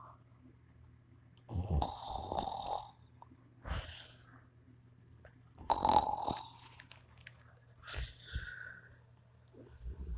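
A man snoring in his sleep: about four rough snores with quiet gaps between them, the last one followed by a short whistling note.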